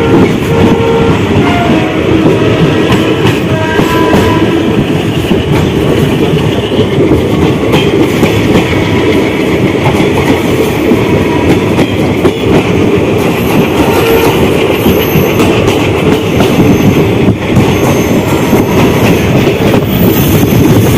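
Ganga Sutlej Express passenger coaches running along the track, heard from an open coach doorway: a loud, steady rumble of wheels on rail with clickety-clack over the rail joints.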